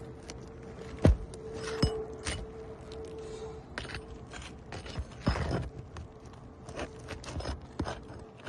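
Roofing nails being worked out from under asphalt shingles with a metal tool: sharp knocks about a second and two seconds in, light clicks, and a scrape of metal against shingle about five seconds in.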